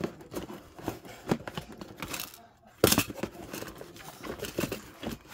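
Cardboard box flaps being handled and pulled open, with the contents rustling and shifting in irregular scrapes and clicks, and one sharp, loud noise about three seconds in.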